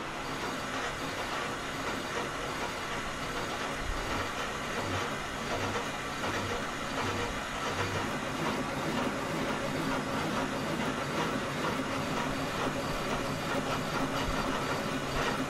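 Metal lathe turning a steel shaft while a long, overhung boring bar cuts its gouged bearing journal: a steady, rough cutting noise, with a soft low pulse about twice a second in the middle stretch. The unsupported bar is chattering in the cut.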